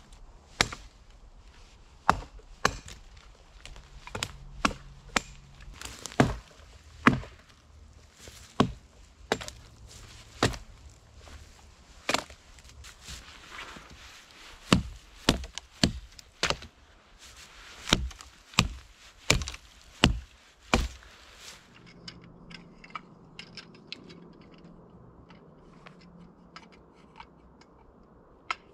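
Axe chopping the dry branches off a fallen dead tree: about two dozen sharp wooden strikes at an uneven pace, then only faint light ticks for the last several seconds.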